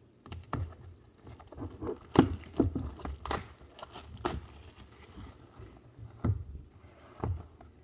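A sealed cardboard trading-card box being handled and opened by hand: irregular taps, scrapes and rustles of the box and its wrapping, with sharp clicks about two and three seconds in.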